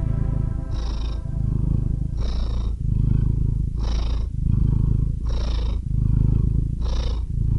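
Domestic cat purring, a low rumble that swells with each breath about every second and a half.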